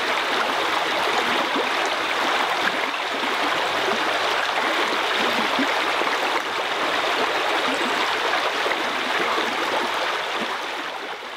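Steady rushing and babbling of a creek's running water, fading out near the end.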